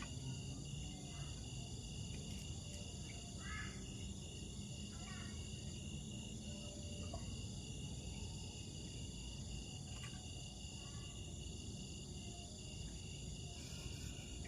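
Steady chorus of crickets buzzing, with a few faint short calls now and then.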